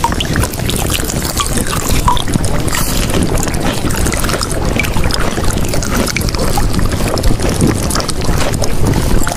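Loud, steady rushing noise with no clear tones or beat: the masking sound track of a subliminal-affirmation audio.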